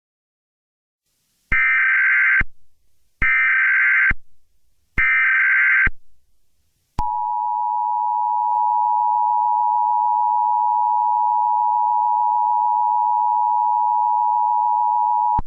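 Emergency Alert System signal: three short bursts of the screeching digital SAME header, each just under a second long, then the steady two-tone EAS attention signal (853 and 960 Hz together), which starts about seven seconds in and holds for about eight seconds.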